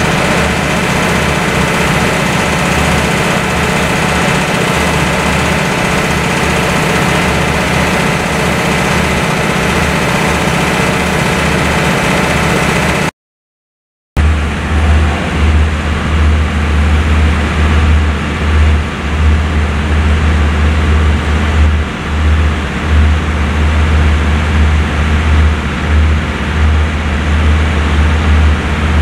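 A stationary passenger train idling, its diesel engine giving a loud, steady hum. The sound cuts out suddenly about halfway through. When it returns, the hum sits under an uneven low rumble that swells and drops.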